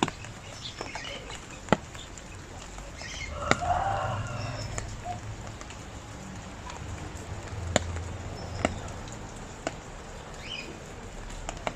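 Rain falling, with heavy drips landing in sharp taps every second or two, and a bird calling briefly about three seconds in, with fainter chirps here and there.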